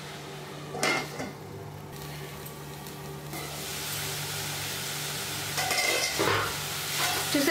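A steel lid clatters once, about a second in, as it comes off a nonstick kadai. Boiled drumstick (moringa) leaves then sizzle in the pan, the sizzle swelling from about three seconds in as the last of their cooking water boils away.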